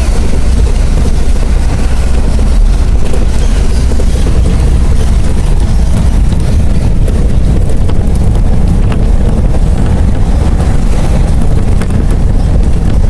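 Steady, loud low rumble of a moving bus, its engine and road noise, heard from inside the bus cabin.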